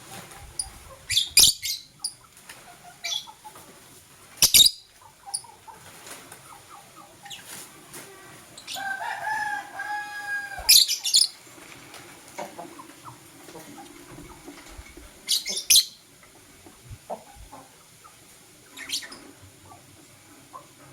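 Lovebirds giving short, shrill, high-pitched calls every few seconds, with one longer, steadier-pitched call about nine seconds in.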